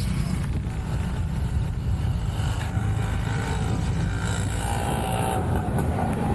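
Steady low rumble of road traffic, with a faint engine whine rising out of it around the middle.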